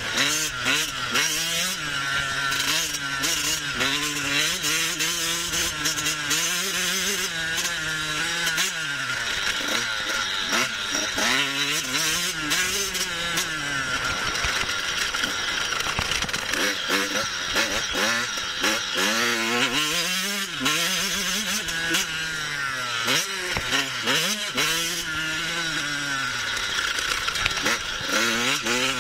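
Husqvarna TC 85 two-stroke motocross bike ridden hard, its engine revving up and dropping back again and again as the throttle opens and shuts. The engine runs the whole time, with short crackles over it.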